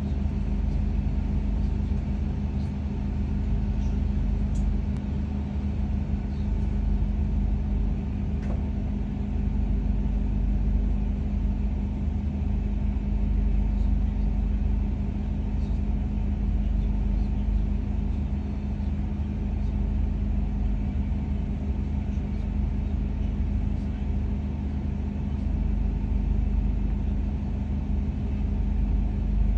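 Steady low hum and rumble inside a stationary KTM ETS electric train carriage as its onboard equipment runs, with a constant tone in the hum and a few faint ticks.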